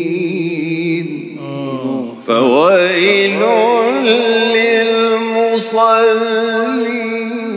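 A man's voice reciting the Quran in the melodic, drawn-out tajweed style, holding long ornamented notes with a wavering pitch. The phrase breaks off about two seconds in, and a new one begins with a sharp upward run.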